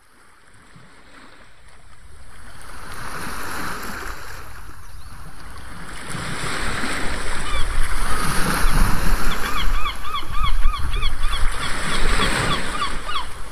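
Seashore ambience fading in from silence: waves washing and wind rumbling. From about halfway there is a flurry of short, rapid bird calls, several a second.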